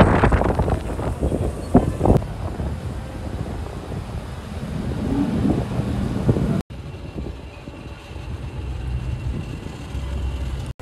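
Cars moving along a street, with engine and tyre rumble and wind gusting on the microphone. There are two sharp knocks about two seconds in, and the sound cuts abruptly about two-thirds through, after which the rumble is quieter.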